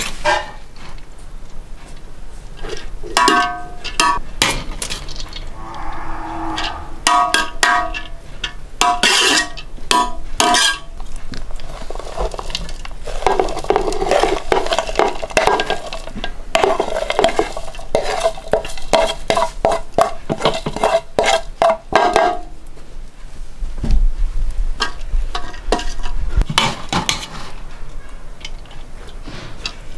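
Metal skimmer scraping and knocking against aluminium cooking pots as cooked rice is scooped and layered, with repeated clinks and the pots ringing briefly after the knocks.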